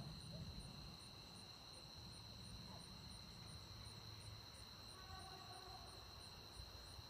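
Faint night insect chorus: a steady high drone with a regular chirp about three times a second. A low rumble dies away in the first second.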